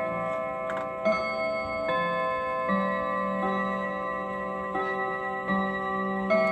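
Trumpf quarter-striking mantel clock playing its chime melody at the hour: a run of struck metallic notes of changing pitch, about one every 0.8 s, each ringing on under the next, with the clock ticking underneath.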